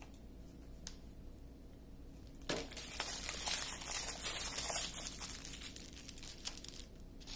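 Small plastic bags of diamond-painting resin drills crinkling and rustling as they are handled, starting about two and a half seconds in.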